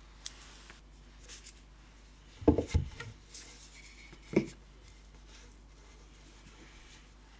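Cling-film-wrapped logs of cookie dough handled on a wooden cutting board: a few dull knocks about two and a half seconds in and one more about four and a half seconds in as a log is set down on the wood, between soft rubbing and crinkling of the plastic wrap.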